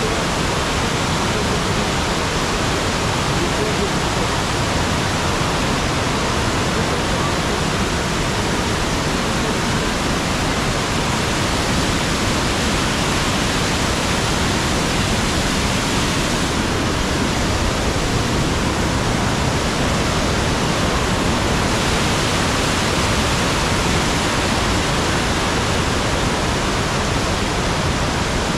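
Waterfall rushing steadily, a loud, even sound of falling water.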